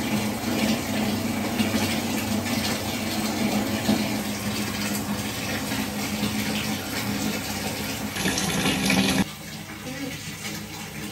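Water pouring steadily into a half-full plastic basin, filling it, as a continuous splashing rush. It drops off abruptly about nine seconds in.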